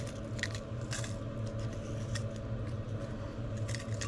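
Dried chiles de árbol being handled and dropped into a blender jar: a few light, crisp clicks and rustles, spaced out, over a steady low hum.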